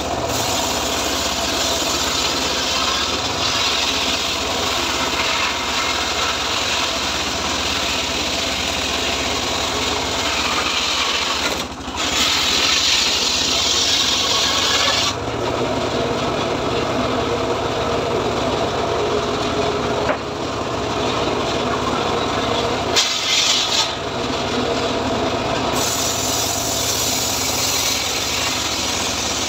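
Homemade circular saw bench ripping a teak log lengthwise into boards, the blade cutting steadily through the wood. The cutting noise changes in tone a few times as the log is pushed through.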